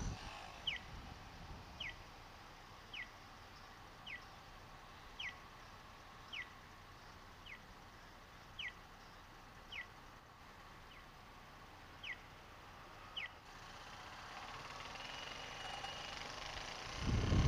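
Audible pedestrian-crossing signal chirping: a short falling tweet about once a second, a dozen times, then stopping. Near the end wind and traffic noise rise as the motorcycle pulls away.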